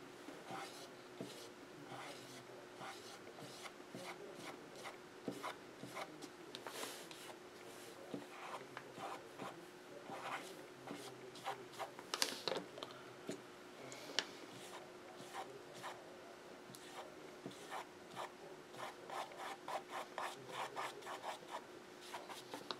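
Faint scratchy rubbing of an old, scruffy angle brush's bristles on stretched canvas in many short, irregular strokes, the brush nearly dry as it lays in soft white wisps of paint.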